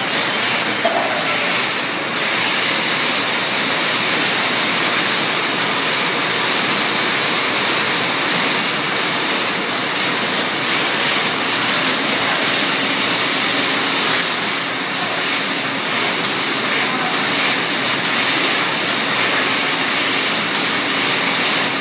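Steady loud din of candy-line machinery: plastic modular conveyor belts and packing equipment running, with many small clicks and rattles throughout.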